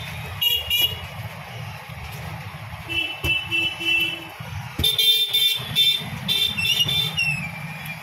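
Alexandrine parakeet giving a series of loud, harsh calls and squawks in short clusters, the loudest bunch in the middle, ending in a falling call near the end. A steady low traffic rumble runs underneath.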